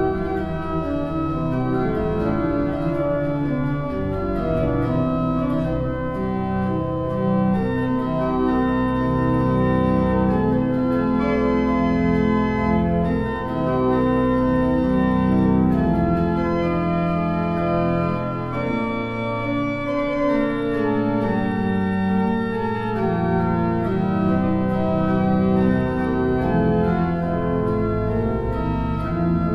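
Organ music: slow, sustained chords held and changing every second or two, with no voice.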